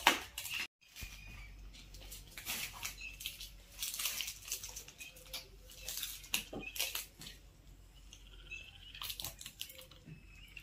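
Crisp, dry tandoori roti being torn by hand and eaten: an irregular run of small crackles and crunches, with now and then a light clink of steel cups or plates.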